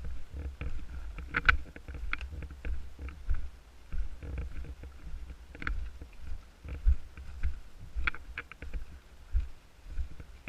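Low rumble of wind or handling noise on the microphone, with scattered sharp clicks and cracks at irregular intervals, the loudest about one and a half seconds in and again around six and eight seconds in.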